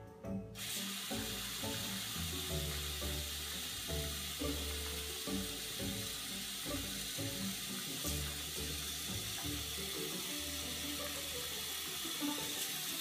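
A bathroom sink faucet comes on about half a second in and runs steadily, splashing into the basin and onto a cat lying in it. Background music plays throughout.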